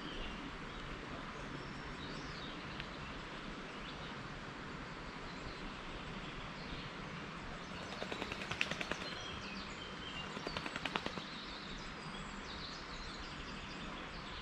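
Outdoor background with small birds chirping here and there, and two short runs of rapid clicking about eight and eleven seconds in.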